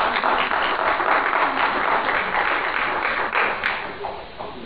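Audience applauding, dense clapping that thins to a few last claps and dies away near the end.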